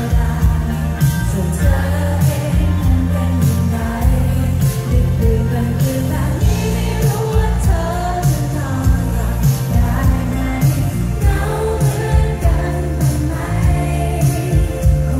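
Live pop band playing through a large PA, heard from inside the crowd: a woman singing lead over heavy bass, drums and electric guitars.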